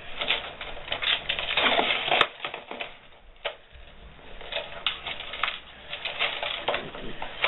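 A thin metal chain necklace being untangled by hand close to the microphone: irregular clinking, clicking and rustling. It thins out for a second or so in the middle.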